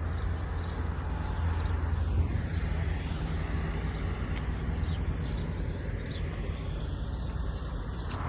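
Outdoor ambience: a steady low rumble with faint, short bird chirps repeated throughout.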